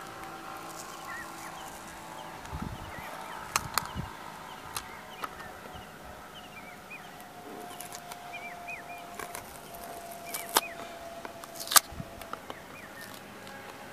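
A cardboard phone box handled while its paper seal sticker is peeled off: light rustling with a few sharp clicks and taps, the loudest near the end. Small birds chirp in the background.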